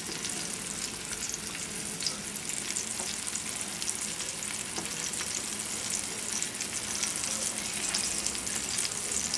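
Flour-coated bone-in chicken thighs sizzling in hot oil as they brown over a high flame: a steady hiss thick with fine crackles.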